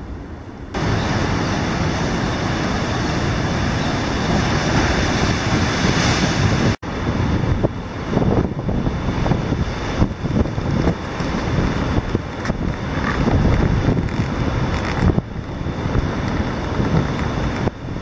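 Strong wind buffeting the microphone over heavy surf breaking on the rocky coast. It rises sharply about a second in, cuts out for an instant around the middle, and then goes on in uneven gusts.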